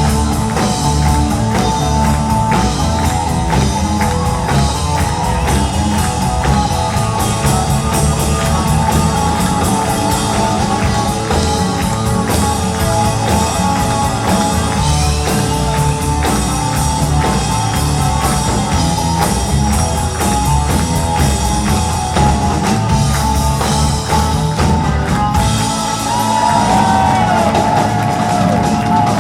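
Live band playing a song, with a drum kit and guitar.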